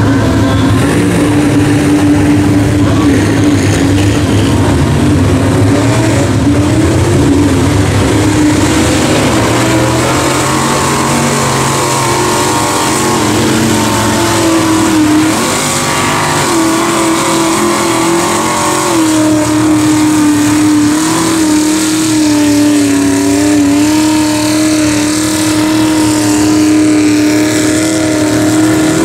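Mega mud truck engines running loud at high revs as the trucks push through deep mud, the pitch held fairly steady with small rises and dips.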